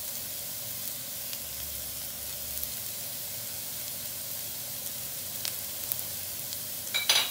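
Fried onions, green chillies and shredded cooked chicken sizzling steadily in hot oil in a pan. A brief clatter comes near the end.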